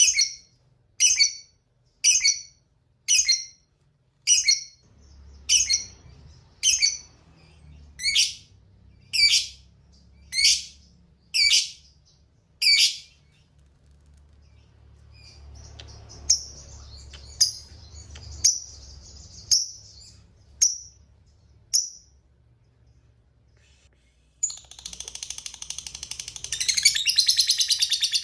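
Lovebird calling: a run of about a dozen sharp, shrill chirps roughly one a second, then softer chatter with short chirps. About 24 seconds in, it breaks into a long, rapid, continuous trilling chatter, the 'ngekek panjang' that keepers prize in a lovebird.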